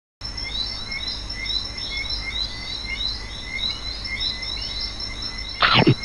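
Title-card sound effects: a steady run of short, rising animal chirps, about three a second, over a faint hiss. Just before the end a loud tone slides quickly down from high to low pitch.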